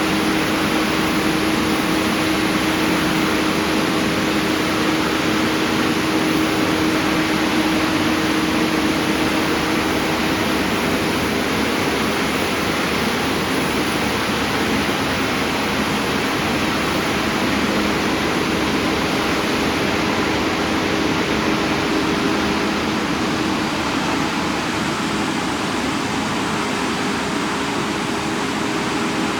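Saw disc on a 5-axis CNC stone machine cutting Fior di Pesco marble: a steady, loud hiss of the cut with a constant pitched hum from the machine underneath.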